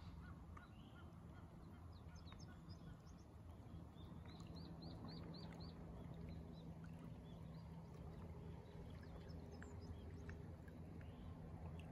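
Faint outdoor ambience of small birds chirping, with a quick run of about six repeated notes around four seconds in, over a low steady hum.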